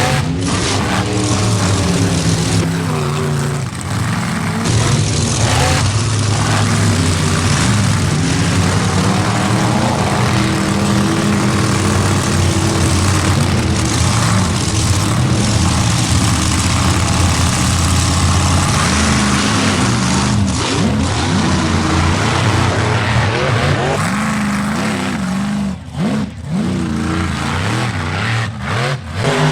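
Mud racing truck engine running at high revs, its pitch rising and falling as the throttle is worked, with a few brief drops in power near the end.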